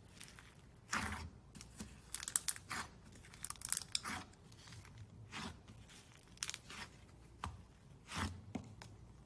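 Slime being handled by hand, giving irregular crackles, pops and tearing sounds as it is squeezed and pulled apart.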